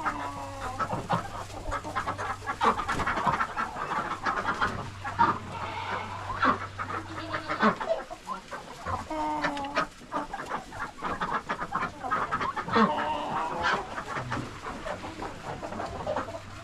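A flock of chickens clucking and chattering on the roost as they settle for the night, with many short calls overlapping and small scratching clicks. A low steady hum runs underneath and drops out briefly about halfway through.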